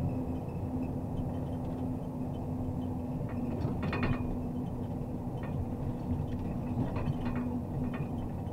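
MAZ Zubr truck crane's diesel engine running with a steady low hum, with short clattering rattles about halfway through and twice near the end.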